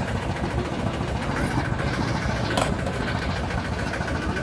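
Motor-driven sugarcane juice crusher running steadily, a dense low drone with a constant thin whine over it. A single sharp click a little past halfway.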